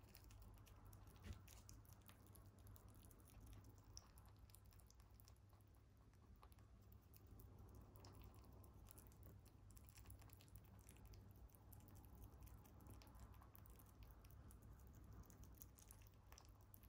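Mini lop rabbit chewing and licking soft banana: faint, rapid little clicks, over a low steady hum.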